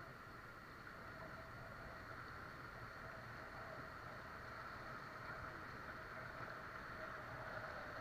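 Steady rush of river water and wind around an inflatable raft moving down a fast-flowing river, with a faint steady tone running through it.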